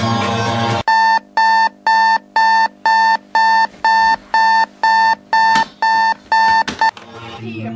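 Alarm clock beeping: a steady high electronic tone about twice a second, which stops suddenly about seven seconds in. Music cuts off abruptly just before the beeping starts and fades back in near the end.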